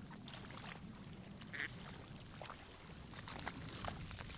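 Ducks quacking faintly: a few short, scattered calls, the clearest about one and a half seconds in, over a low steady rumble.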